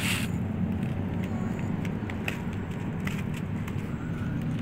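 Steady low rumble of city traffic, with a brief rustle at the very start and a few faint clicks.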